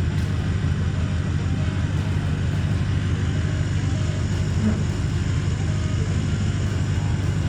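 An engine running steadily: a constant low drone with no change in speed.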